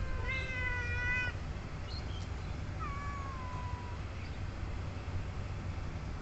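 A domestic cat meowing twice: a long, drawn-out meow starting just after the beginning, lasting about a second, then a shorter meow falling in pitch about three seconds in.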